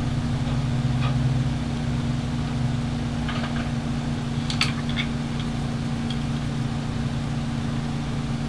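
A steady low engine-like hum, with a few light clicks about halfway through.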